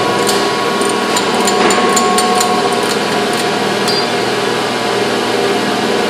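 Steady factory machine noise with a quick run of sharp metallic clinks and knocks in the first half, metal tools striking steel during a mould change on a moulding machine.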